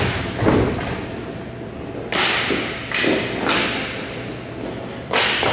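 About six sharp thuds and slaps over a few seconds, several trailing off in a long echo.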